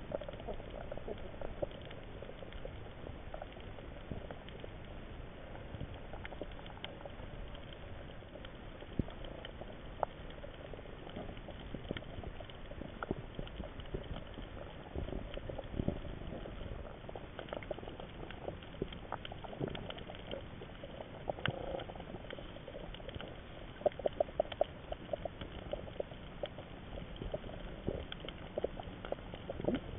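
Underwater sound over a coral reef: a steady crackling haze dotted with scattered sharp clicks and pops. A quick flurry of louder clicks comes late on.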